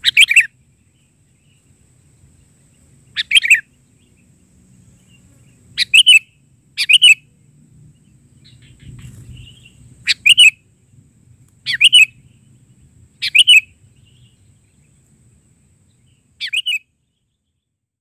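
Sooty-headed bulbul (kutilang) giving short, loud call phrases, eight in all, each about half a second long and two to three seconds apart.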